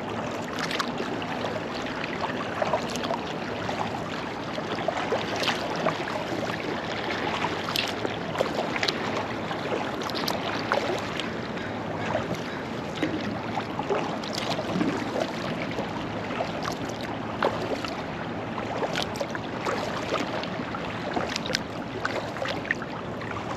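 Sea kayak being paddled on open water: a steady wash of water with frequent small, irregular splashes from paddle blades and water lapping at the hull.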